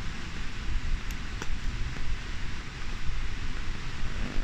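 Wind buffeting the microphone: an uneven low rumble that rises and falls, with a couple of faint clicks about a second and a half in.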